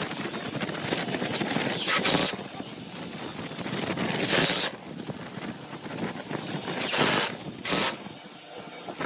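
Wood lathe turning a blank of bamboo chopsticks set in epoxy resin, a hand tool scraping and cutting against the spinning piece. Sharper hissing swells come about every two to three seconds.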